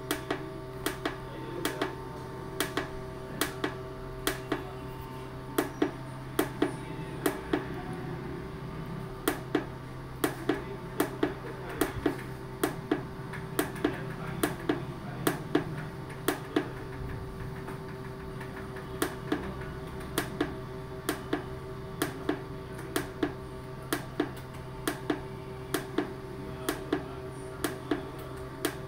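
Keypad buttons on a Symphony digital weighing scale clicking as they are pressed over and over, often in quick pairs, roughly one press a second, while stepping through the scale's setup menu. The presses stop for about two seconds two-thirds of the way through, and a steady electrical hum runs underneath.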